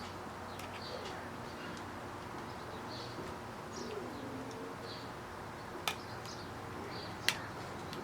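Two sharp clicks of hard phone parts being handled as the camera lens cover is pressed onto the replacement back glass, against a steady low hum. Faint high chirps recur about once a second, with a short low cooing glide near the middle.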